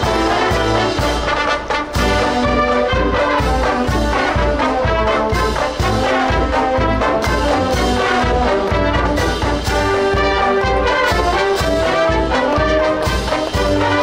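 Marching band playing: saxophones and brass (trumpets, trombones, sousaphone) in full, over a steady drum beat.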